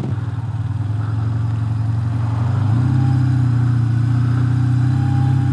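Motorcycle engine running as the bike is ridden, heard from the rider's seat: a steady low hum that grows a little louder about halfway through.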